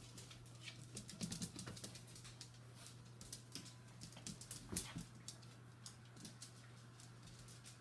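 Puppies' claws clicking and pattering on a tiled floor as they scamper and play, with a few louder knocks, over a faint steady hum.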